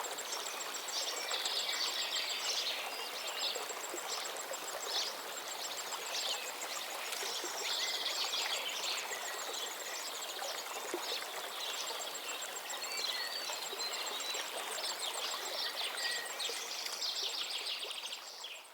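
Stream water running steadily, with small birds chirping and trilling over it in short repeated phrases. It all fades out at the very end.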